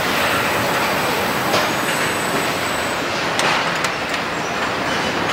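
Car assembly line machinery running: a steady mechanical din from the overhead body conveyor and plant equipment, broken by a few sharp knocks, once about a second and a half in and twice around three and a half seconds in. A faint high whine stops about three seconds in.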